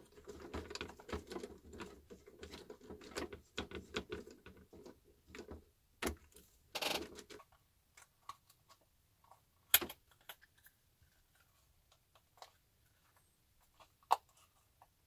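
Small plastic clicks and clatter as the wheels of a WPL B-36 Ural RC truck are handled and fitted onto its hubs: a busy patter for about the first seven seconds, then a few separate sharper clicks, the loudest about ten seconds in.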